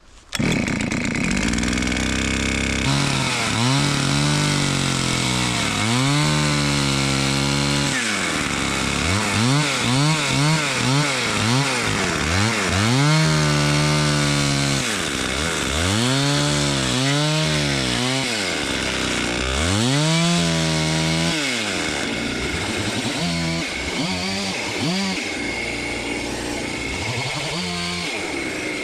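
Gas chainsaw running hard as it rip-cuts a log lengthwise into lumber, its engine pitch rising and falling over and over as the bar sweeps back and forth through the wood. The pitch swings come shorter and quicker in the last several seconds.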